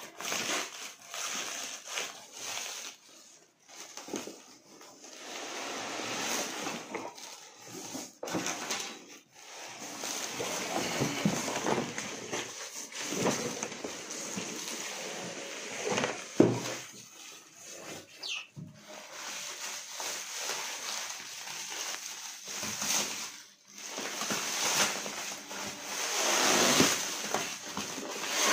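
Plastic wrap and foam packing rustling and crinkling in irregular handfuls as a boxed machine is unwrapped by hand, with a few sharp knocks, the loudest about sixteen seconds in.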